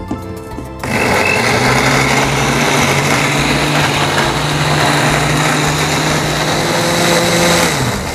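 Philips countertop blender motor starting about a second in and running steadily, grinding shallots, garlic, candlenuts, turmeric and ginger with a little water into a spice paste. Near the end it winds down in pitch and stops.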